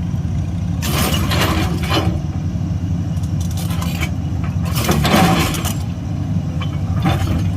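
Excavator's diesel engine running steadily, with loud bursts of rattling noise from the machine at work about one second in and again about five seconds in.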